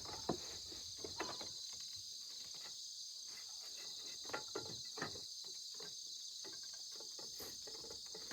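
Steady high-pitched chorus of insects singing, with a few faint ticks and taps scattered through it.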